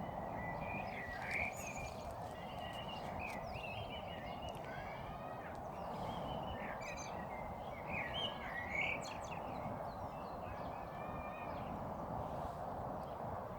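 A songbird singing a varied string of short chirps and whistles, some sliding in pitch, with short gaps between phrases, over a steady background noise.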